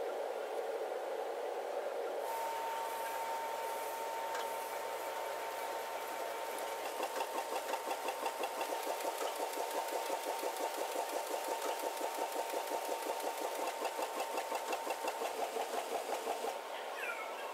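Sheet-fed banknote printing press running: a steady mechanical hum with a high tone over it and a fast, even clatter of several beats a second. The clatter stops shortly before the end.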